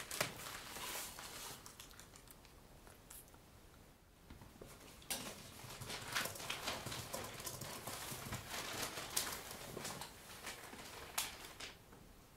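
Faint, irregular small clicks and soft rustling, starting about four seconds in, in a small room.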